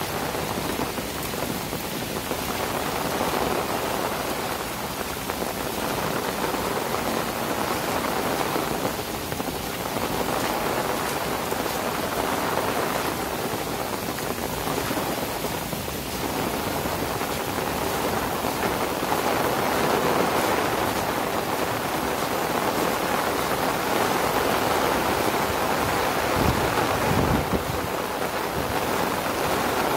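Heavy rain falling on grass, trees and a paved path: a steady, dense hiss of rain. A brief low rumble comes near the end.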